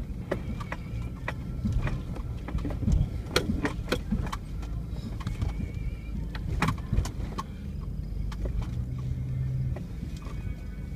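Off-road vehicle's engine rumbling at low speed, heard from inside the cab, with frequent knocks and rattles as the vehicle jolts over a rough dirt trail. For a couple of seconds about eight seconds in, the engine holds a steadier note.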